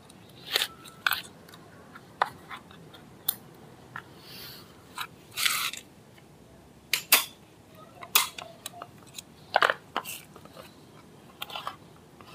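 Irregular sharp metal clicks, taps and a brief scrape, some with a short ring, as rear drum brake shoe hardware is worked by hand into place. The part keeps refusing to seat. The loudest click comes about seven seconds in.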